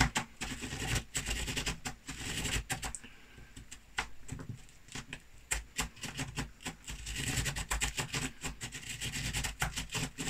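Pen scratching on paper as a homemade cut-out spirograph gear is rolled around inside its toothed ring, with irregular small clicks and taps as the gear moves.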